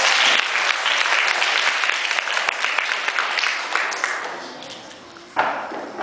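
Audience clapping, a room full of people applauding that slowly dies away over about five seconds.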